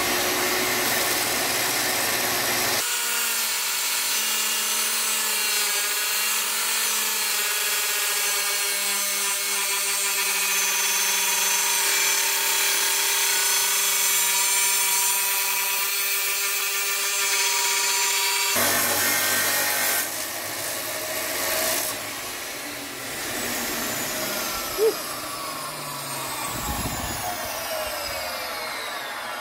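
Drop saw running and cutting down a spacer for about twenty seconds, then switched off, its motor winding down with a falling whine; one short sharp click near the end.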